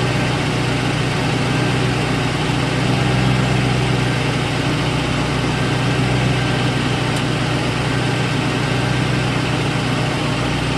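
Ford 4.6L two-valve V8 in a 2001 Lincoln Town Car idling steadily. The engine's timing chain had worn through its plastic and aluminium guides and into the tensioner piston, which the owner at first took for early rod knock.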